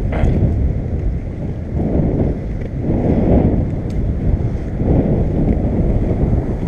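Skateboard wheels rolling over a concrete sidewalk with a steady, loud rumble that swells and eases, mixed with wind buffeting the microphone.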